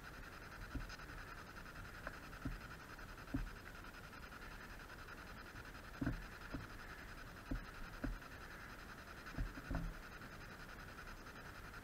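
Irregular soft thumps of footsteps and camera handling as someone moves over concrete rubble, heard over a steady faint hiss.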